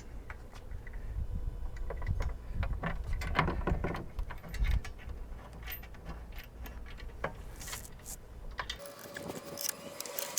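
Small metal hardware clinking in scattered light clicks as a bolt, lock washer, flat washer and spacer are handled and fitted for a light bar mount, over a low rumble that drops away near the end.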